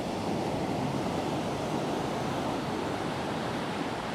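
Surf of a rough sea breaking on the beach: a steady rush of waves.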